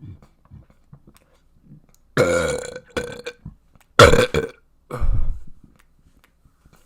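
A person burping loudly three times: a long, drawn-out burp about two seconds in, then two shorter ones about a second apart, with small, quiet sounds in between.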